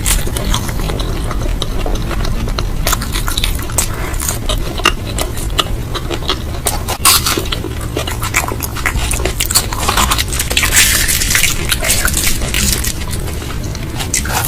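Close-miked eating: chewing with many short wet clicks and crunches, and a louder stretch of crackly crunching about ten seconds in.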